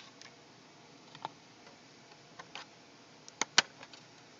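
A few small, sharp clicks and taps as laptop memory modules are worked free of their spring retaining clips. The loudest two come close together a little past three seconds in.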